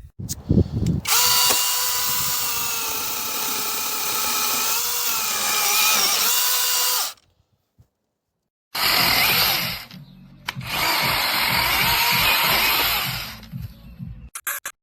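Cordless brushless mini chainsaw's electric motor running with a steady whine for about six seconds and cutting off. After a short pause it runs twice more with a harsher, noisier sound.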